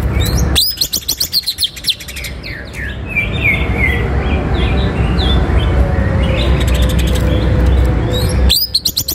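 Male leafbird (cucak ijo) singing fast runs of sharp, sweeping whistled notes, densest about half a second in and again near the end, with scattered notes between. A steady low rumble lies under the song.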